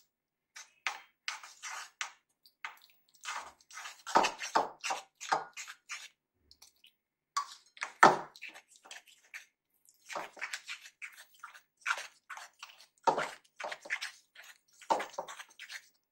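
Steel spoon stirring gram-flour batter in a stainless-steel bowl: irregular wet scraping and clinks of the spoon against the bowl as water is worked into the flour.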